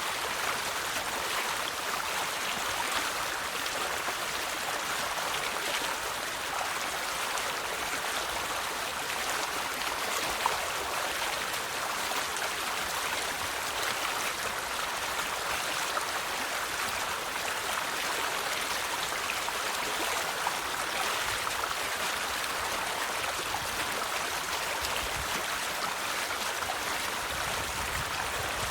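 River water flowing steadily over rocks, an even rushing and splashing with small splashes here and there.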